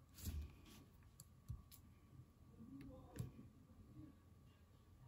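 A handful of faint computer-mouse clicks over quiet room tone, as an image-editing brush paints out a letter.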